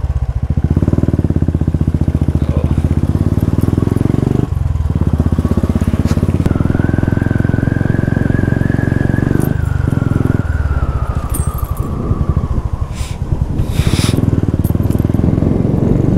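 Royal Enfield single-cylinder motorcycle engine running at road speed. The engine note eases off briefly about four and a half seconds in and again around ten seconds in.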